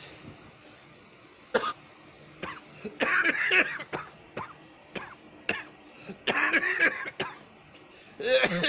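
A person coughing badly in several bouts: one single cough about a second and a half in, then fits of rapid coughs around three seconds, around six seconds and again near the end.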